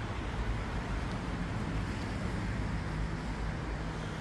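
Steady outdoor background noise: mostly a low rumble with a light hiss above it, and no single event standing out.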